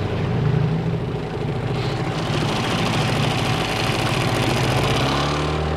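Gladiator 9.8 boat outboard motor running steadily during its break-in, its engine note shifting about five seconds in.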